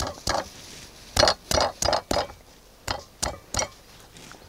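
Wooden pestle pounding garlic cloves in a stone mortar, crushing them by hand: about nine sharp knocks in uneven groups of two to four.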